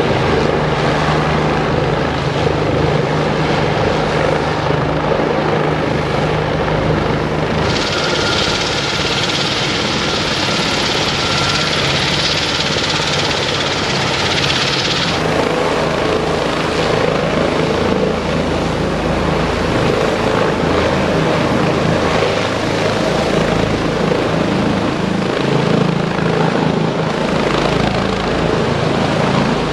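Bell 429 twin-turbine helicopter running, its turbines and main rotor making a steady loud noise, with a strong high hiss from about eight seconds in that stops about fifteen seconds in.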